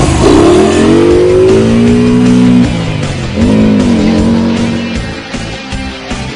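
Trike engine revved hard, its pitch falling back over about two seconds, then a second, shorter throttle blip that rises and drops. The engine sound fades out after about five seconds.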